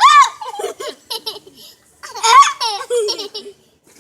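High-pitched laughter and squeals in two bursts, the first right at the start and the second a little over two seconds in.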